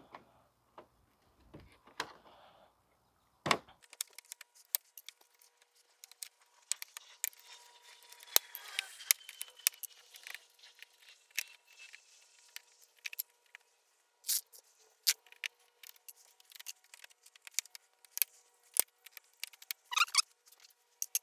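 Plastic retaining clips being worked and pried out of a car's bumper and rubber liner: an irregular run of sharp clicks, small snaps and rattles, with no steady machine sound behind them.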